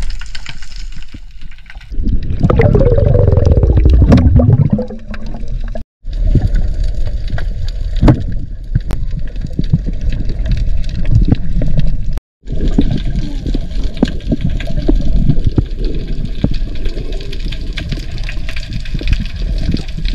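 Underwater water noise with scattered crackling clicks, and a loud gurgling, bubbling rush from about two to five seconds in. The sound cuts out briefly twice.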